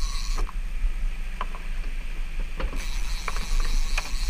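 Fishing reel ratcheting with scattered sharp clicks while a hooked fish pulls on the bent rod, over a steady low rumble.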